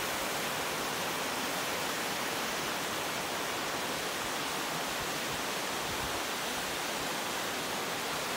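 Mountain creek cascading down over rocks: a steady, even rushing of water.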